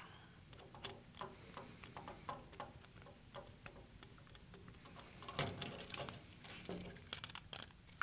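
Faint, scattered small clicks and light metallic ticks of pliers and copper wire handled against a duplex electrical outlet as a ground-wire loop is hooked and pinched onto its ground screw. A denser, slightly louder run of clicks comes about five to six seconds in.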